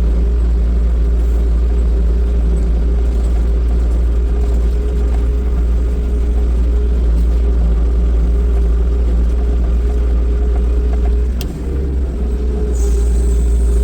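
New Holland L225 skid loader's diesel engine running steadily with a deep drone. About eleven and a half seconds in there is a sharp click and the engine note dips briefly.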